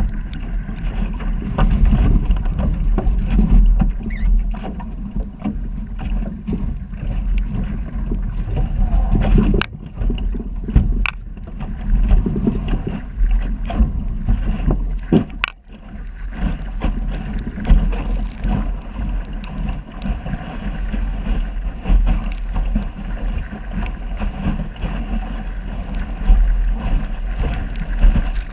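Wind buffeting the microphone of a bow-mounted camera on a small sailing dinghy, heavy and gusting, with the hull splashing and slapping through choppy water and occasional sharp knocks.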